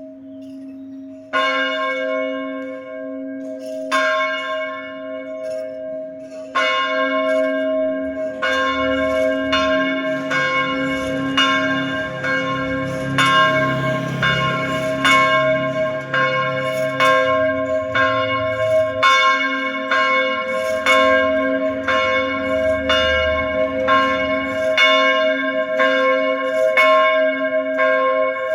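Church bell ringing: a few strokes a couple of seconds apart, then struck steadily about once every three-quarters of a second, each stroke sounding over the bell's long ringing hum.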